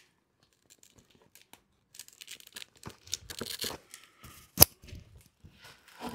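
Rustling and scraping of a chest armor plate being pressed on and adjusted over a fabric jumpsuit, held with hook-and-loop fastener, with one sharp click past the middle. It starts after a couple of seconds of near silence.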